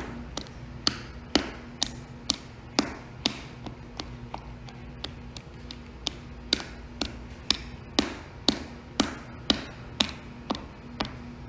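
Sharp taps repeating about twice a second, some much louder than others, over a faint steady hum.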